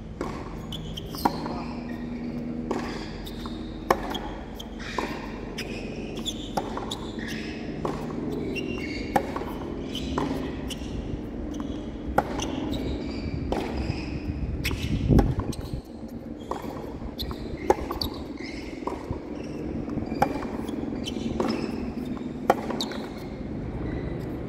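Tennis rally: sharp pops of racquets striking the ball every second or two, mixed with ball bounces and short sneaker squeaks on the hard court. A dull low thump about fifteen seconds in.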